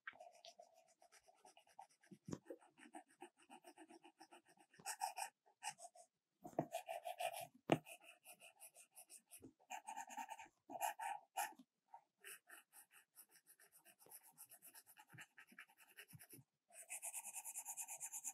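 Stylus tip scratching and tapping on an iPad Pro's glass screen in rapid runs of short strokes, with one sharp tap about eight seconds in.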